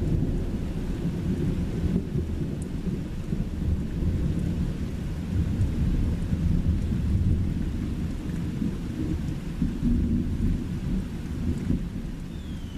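Thunderstorm: steady heavy rain with a continuous, rolling low rumble of thunder.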